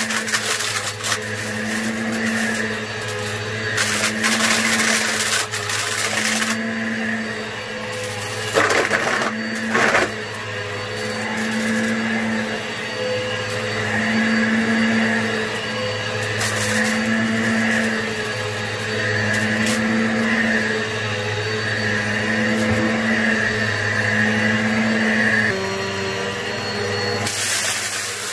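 Upright vacuum cleaner running on carpet, pushed back and forth, its motor hum swelling and fading about every second and a half with each stroke. Several short bursts of crackling as grit and debris are sucked up; the rhythm stops about 25 seconds in.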